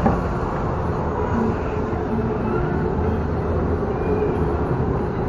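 Tamiya radio-controlled Toyota Land Cruiser 40 driving over paving, heard from a camera mounted on the car: its electric motor and gearbox run with a steady rumble from the tyres, over street traffic.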